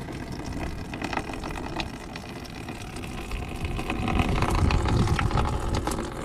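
Engine coolant draining from a radiator drain valve, a steady splashing flow. A low rumble swells about four seconds in and fades again.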